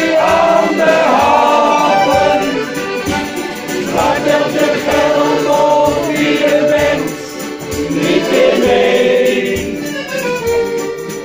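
Men's choir singing in unison, with a steady beat underneath.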